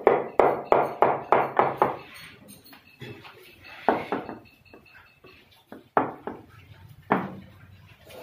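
Sharp knocks on a dark stone skirting strip being tapped into place along the base of a wall: a quick run of about eight in the first two seconds, then a few single knocks.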